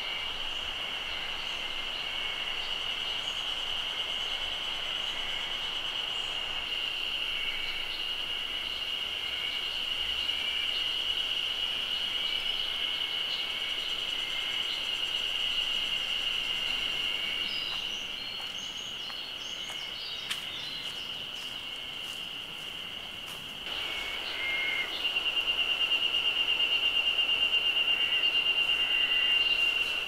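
Cicadas droning steadily in the forest, a single high-pitched drone that grows louder and pulses rapidly in the last few seconds. A few faint bird chirps come in around the middle.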